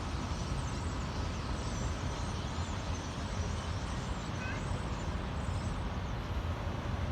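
A huge flock of birds chattering and calling all at once, a dense, unbroken din of many voices, over a steady low rumble of freeway traffic.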